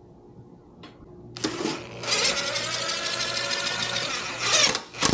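Small electric motor running steadily, driving a jack stand up to lift a motorbike; it starts about a second and a half in and stops near the end.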